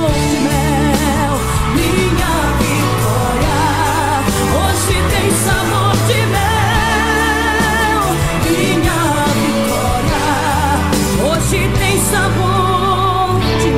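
A gospel pop song played by a band, with a singing voice holding long notes with vibrato over it.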